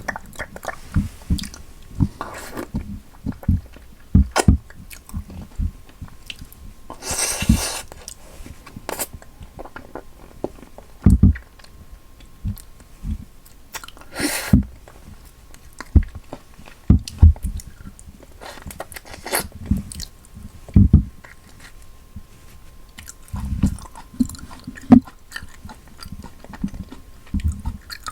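Close-miked mouth sounds of a person eating durian: irregular soft, wet chewing with clicks and smacks. Two longer hissy sounds come about 7 and 14 seconds in.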